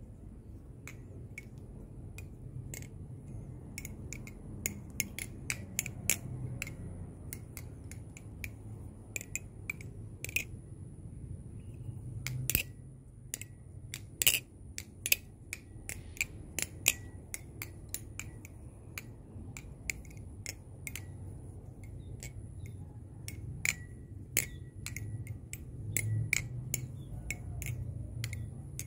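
Balisong trainer, a Krake Raken V2 clone with its blade slap fixed, being flipped: a long run of irregular sharp clicks and clacks as the handles and blade swing around and knock together, a few of them much louder. A faint steady high whine sounds throughout.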